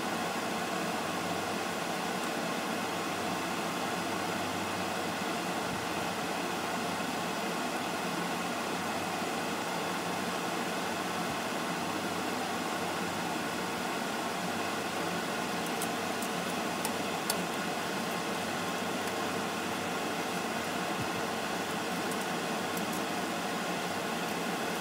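Mantis shrimp and garlic frying in butter in a pan: a steady sizzle, with a few sharp clicks in the second half as the shrimp are turned with tongs.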